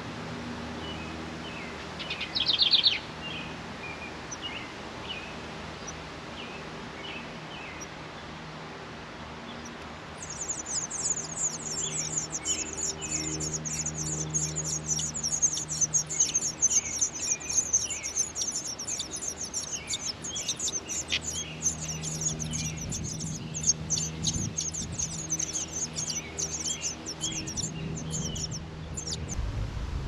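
Wild songbirds chirping, with one loud chirp about two seconds in. About ten seconds in, a high, rapid buzzing trill starts and runs on until shortly before the end, with scattered chirps underneath.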